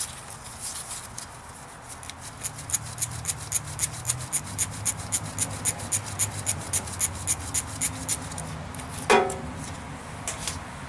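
A socket ratchet clicks in quick, even strokes, about four a second, as it backs out the 11 mm bolt holding the speedometer sensor in the transfer case. A brief louder sound follows about nine seconds in.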